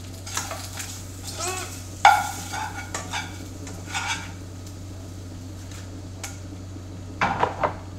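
Plastic spatula scraping and clacking in a nonstick frying pan as fried eggs are lifted out, with a sharp clack about two seconds in and another run of scrapes near the end, over a steady low hum.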